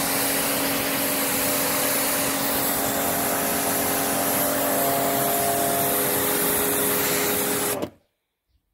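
Kärcher K5 electric pressure washer running with a steady motor hum while its lance sprays a high-pressure water jet onto concrete, now at full pressure after its high-pressure pump was repaired. The sound cuts off abruptly near the end.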